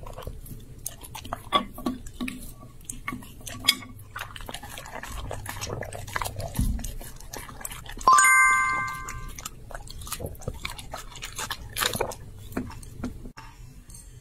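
Border collie chewing and licking food off a plate, a steady run of short wet smacks and crunchy bites. About eight seconds in, a bright chime sound effect rings out and fades over about a second; it is the loudest sound here.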